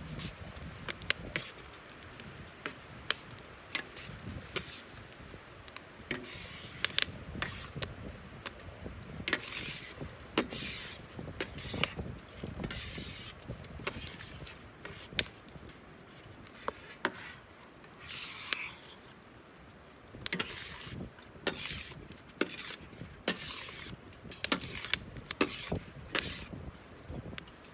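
Metal utensil scraping and tapping the bottom of a steel paella pan while stirring rice, in repeated strokes with sharp clicks throughout. A wood fire crackles under the pan.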